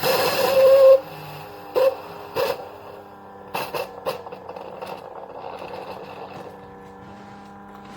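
Instant Solo single-serve coffee maker brewing, its pump running with a steady hum. The first second holds a louder, noisier burst, and a few short sharp spits come at about 2 and 4 seconds in.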